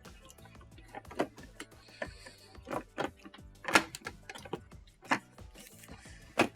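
Quiet background music, with scattered sharp clicks and knocks of plastic parts being handled as a new dishwasher control board is fitted into its control panel.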